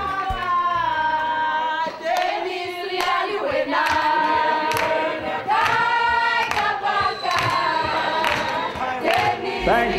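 A group of voices singing together in chorus, with hand clapping through it.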